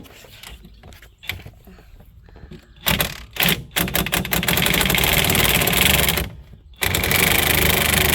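Impact wrench hammering as it spins out a loosened front hub assembly bolt: a few short bursts about three seconds in, then a steady run, a brief stop about six seconds in, and running again.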